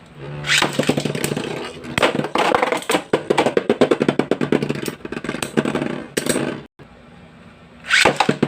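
Two Metal Fight Beyblade tops, Lightning L-Drago 100HF and Gravity Perseus AD145WD, spinning and clashing in a stadium: a steady spinning hum under rapid, repeated metal-on-plastic hits and rattling. The hits break off suddenly about two-thirds of the way in, and another quick flurry follows near the end.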